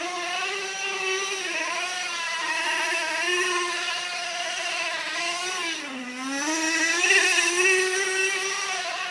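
Radio-controlled car's motor revving up and down as the car drifts and spins on snow. Its pitch rises near the start, dips about six seconds in, then climbs again.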